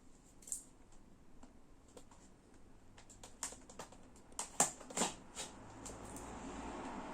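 Toy packaging being handled and opened: a run of small sharp clicks and crackles, loudest a little under five seconds in, then a soft rustle toward the end.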